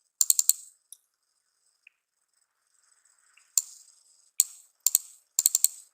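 Computer keyboard keystrokes in short bursts: a quick run of about four keys near the start, a few single taps, then several quick clusters of keystrokes in the second half.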